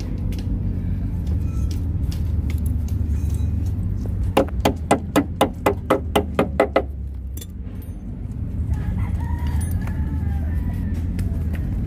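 A chicken clucking, about ten quick clucks in a row a few seconds in, over a steady low rumble.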